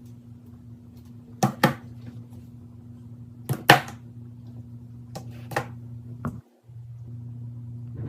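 Sharp clicks from a fidget toy being handled, mostly in quick pairs about every two seconds, over a steady low electrical hum that drops out briefly near the end.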